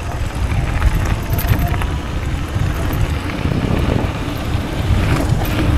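Wind rushing over the microphone and tyres rolling on a gravel track while riding a homemade 72 V electric downhill bike; a steady, fairly loud noise with no clear motor tone.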